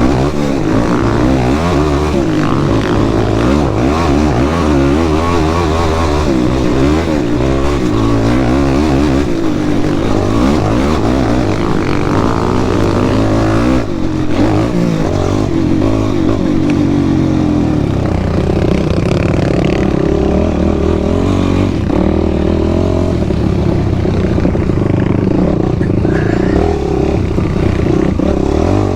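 Sport quad's engine revving up and down as it is ridden along a trail, its pitch rising and falling with the throttle. It runs steadier from about two-thirds of the way in.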